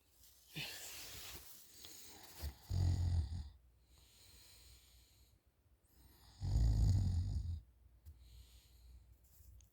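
A person snoring loudly while asleep with their mouth hanging open: two loud, low snores about a second long, roughly three and a half seconds apart, with softer breathing between them.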